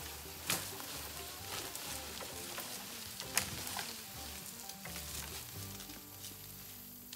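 Dry leaves, twigs and a woody vine crackling and rustling in woodland undergrowth as the vine is grabbed and pulled, with scattered small clicks. Two sharper cracks stand out, about half a second in and about three and a half seconds in.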